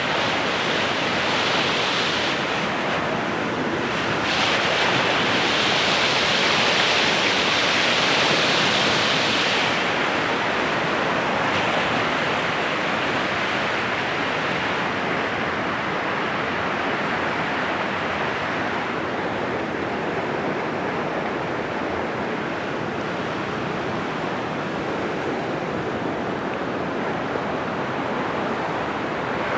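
River in flood: fast, swollen water rushing steadily, a little louder for a stretch about five to ten seconds in.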